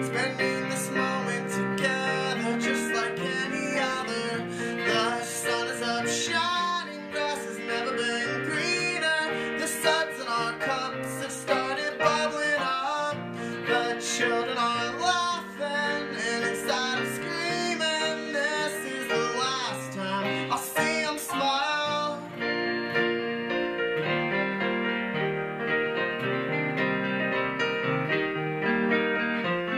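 Acoustic guitar and a keyboard with a piano sound playing an instrumental passage together. A wavering lead line sits above them until about three-quarters of the way through, then guitar and piano go on alone.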